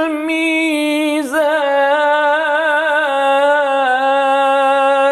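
Quran recitation in maqam Saba: a single voice drawing out one long, ornamented note of 'alla tatghaw fi al-mizan', wavering in small turns and stepping down slightly about two seconds in.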